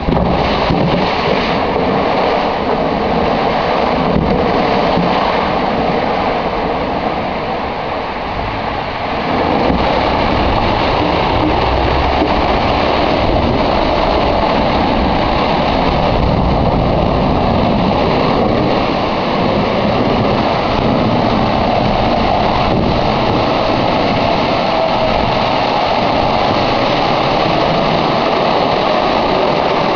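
Storm-sewer geyser: a loud, steady rush of water gushing up out of the sewer, growing louder about nine seconds in.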